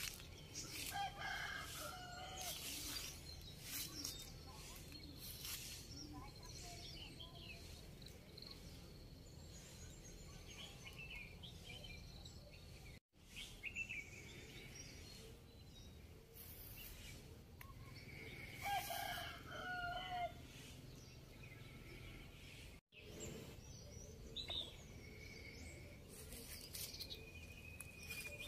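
Rooster crowing twice, about a second in and again near twenty seconds in, over small birds chirping in a faint rural outdoor ambience.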